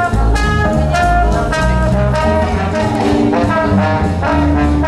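Live jazz band playing through a concert sound system, a horn section holding sustained notes over a walking bass line and a steady drum beat.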